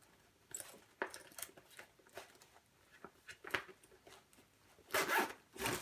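Zipper on the removable PVC liner of a soft-sided nylon cooler being worked closed by hand in short tugs, with small ticks and rasps, then two longer, louder zip pulls near the end.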